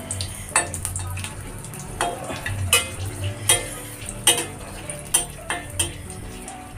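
Dried red chillies sizzling in hot oil in an aluminium kadhai, with a metal spatula stirring them and scraping and tapping against the pan in irregular sharp strokes, one or two a second.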